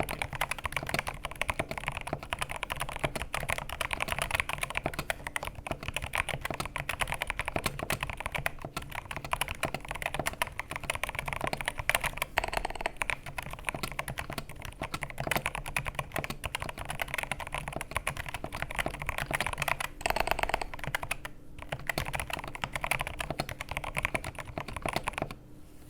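Continuous typing on an Attack Shark K86 mechanical keyboard fitted with Akko Rosewood linear switches: a dense stream of keystroke clacks, broken by a short pause about three-quarters of the way through.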